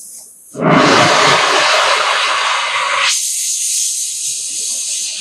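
Oxy-acetylene welding torch flame hissing loudly while the flame is adjusted. The hiss comes up to full strength about half a second in, and about three seconds in its lower part drops away, leaving a thinner, higher hiss.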